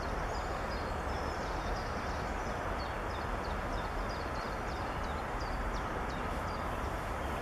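Steady outdoor background rumble and hiss, with a small bird's short, high, downward-sliding chirps repeating over it until near the end.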